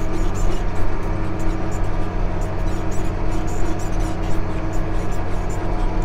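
Tractor engine running steadily under way, heard from inside the cab as a constant low drone.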